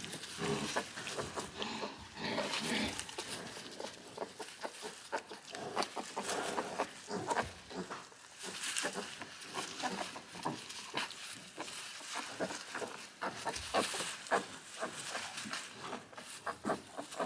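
Newborn piglets scrabbling and rustling in wood-shaving bedding, with short pig grunts.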